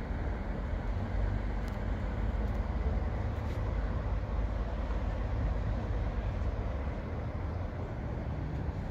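Steady low rumble with a light hiss from a train standing at a platform, with no distinct knocks, whistles or exhaust beats.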